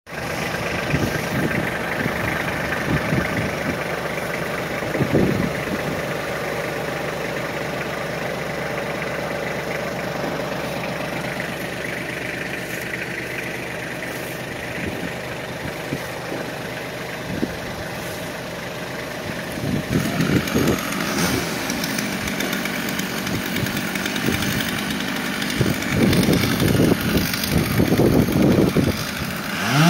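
Compact tractor's engine running steadily at idle, growing louder and more uneven over the last ten seconds.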